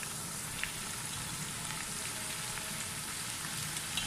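Sliced onions and whole garlic cloves sizzling in hot oil in a pot, a steady crackling hiss. Two brief knocks, about half a second in and near the end, come as raw mutton pieces are dropped in.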